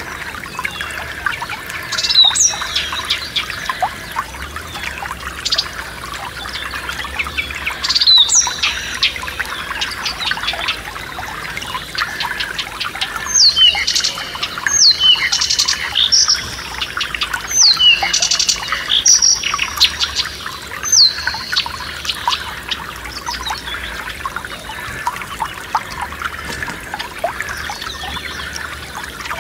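A small forest stream trickling steadily over stones, with songbirds singing over it in short sweeping phrases. The birdsong is busiest in the middle stretch.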